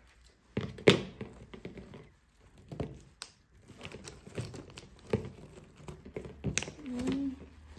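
Plastic packaging and tape on a cardboard cookware box being pulled and torn open by hand: irregular crinkling and tearing with sharp snaps, the loudest about a second in.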